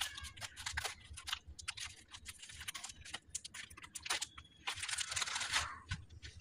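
Microwave popcorn packaging being opened by hand: a run of small clicks and crinkles, with longer rustling tears about two and a half seconds in and again around five seconds.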